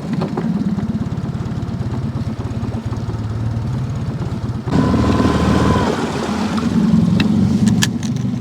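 Boat motor running steadily at low speed while the boat is manoeuvred into position on the river, getting louder about halfway through as it is given more throttle.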